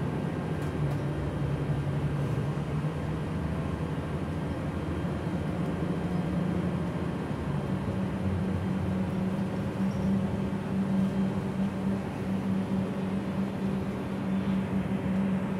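Gillig low-floor city bus running, heard from inside the cabin: a steady engine and drivetrain hum whose pitch steps up about six seconds in and holds higher.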